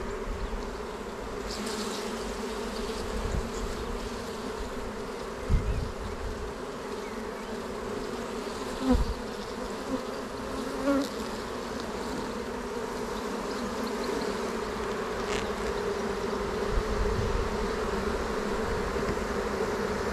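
Honeybees buzzing steadily in a steady hum around an opened hive as its frames are handled, with a few soft low thumps about 5 to 11 seconds in.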